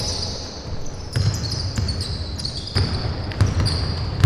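A basketball bouncing on a hardwood court as it is dribbled during play, a few irregular thuds starting about a second in, with short high squeaks of players' shoes on the floor.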